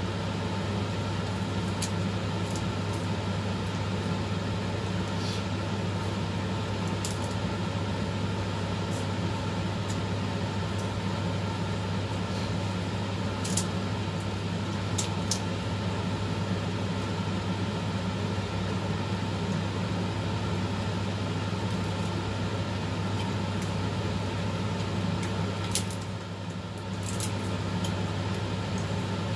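A steady low machine hum, with a few light clicks scattered through; the hum drops briefly near the end.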